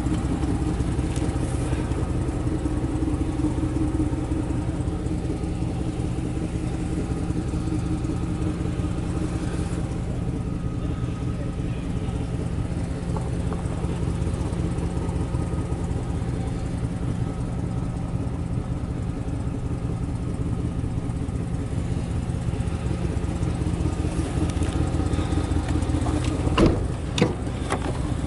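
A vehicle engine idling steadily, with two sharp knocks close together near the end.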